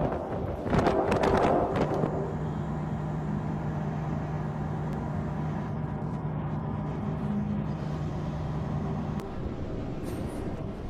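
Noisy rushing gusts for the first two seconds, then a steady low engine hum of a road vehicle over outdoor street noise, fading out about nine seconds in.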